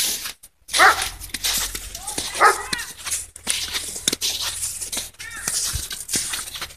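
Several short animal calls over a steady rustling noise.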